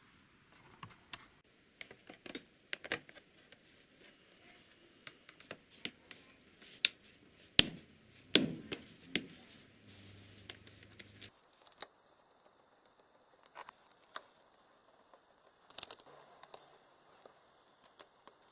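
Irregular small clicks, taps and scrapes of hands working on a laptop's parts during a battery replacement, the sharpest click a little after seven seconds in.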